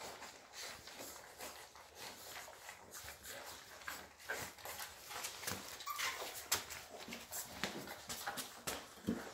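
A litter of Llewellin setter puppies eating a weaning meal from a shared metal pan: a dense, irregular patter of lapping, smacking and small clicks against the pan, with a few short puppy whimpers.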